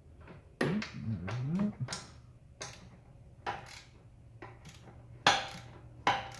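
Sharp metallic clicks and taps, about five spread irregularly and the loudest near the end, as bolts and hardware on a car's rear upper camber arm are handled and checked by hand. A brief low murmur of voice comes about a second in.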